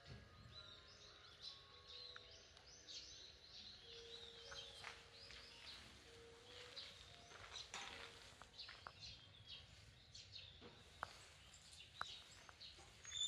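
Faint twittering of small birds: many quick, high chirps overlapping, busiest in the first two-thirds, with a few soft clicks near the end.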